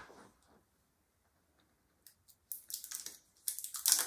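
A new small plastic bottle of acrylic paint being opened by hand: quiet at first, then a quick irregular run of small clicks and crackles from about two and a half seconds in, the sharpest near the end.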